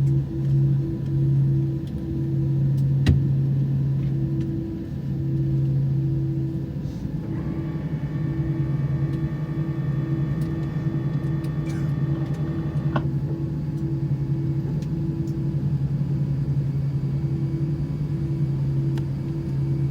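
Airbus A319 cabin noise: a low engine and air-system drone that pulses on and off. A higher steady whine comes in about seven seconds in and cuts off suddenly near thirteen seconds.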